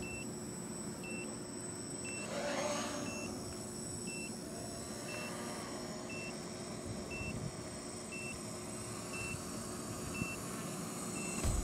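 Small quadcopter's electric motors and propellers whining steadily in flight, with a brief rising and falling whine a couple of seconds in. A short high beep repeats about once a second throughout.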